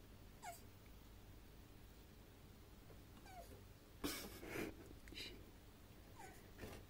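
A male Horsfield tortoise squeaking while mounting a female during mating: three short, high calls, each falling in pitch, spaced a few seconds apart. About four seconds in there is a louder, noisy burst lasting about half a second.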